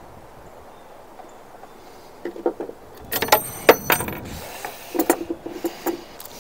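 Metal hardware clinking and clattering as parts are handled inside the top of an old wooden Victrola cabinet. It comes in three clusters of clicks and clanks, the middle one loudest with a ringing metallic edge, over a steady wind hiss.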